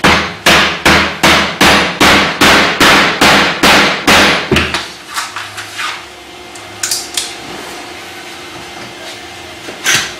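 Rubber mallet striking a plastic wall anchor into a drilled hole in a laminated board: about a dozen sharp, evenly paced blows, roughly two and a half a second, stopping about four and a half seconds in, then a few fainter knocks.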